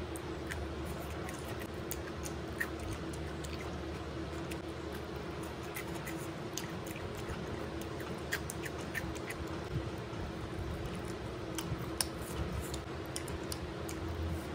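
Close-up eating sounds: a person chewing rice and crunchy cucumber eaten by hand, with many small wet clicks and mouth smacks, over a steady background hum.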